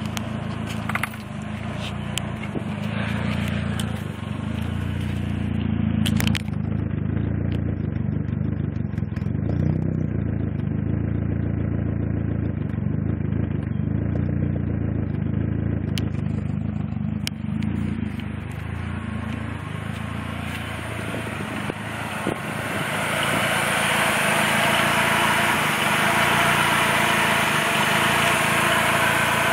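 Mazda MX-3's 1.6-litre four-cylinder engine idling roughly with its revs wavering, the sputter and misfire the owner gets only between idle and 1500 rpm, with a few sharp clicks. About 22 seconds in the revs are raised and it runs higher and louder, where the owner says it is fine.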